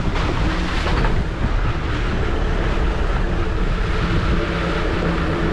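A 4x4 vehicle driving on an off-road track: a dense rumble of engine and rough-ground noise, with a steady engine hum coming through from about two seconds in.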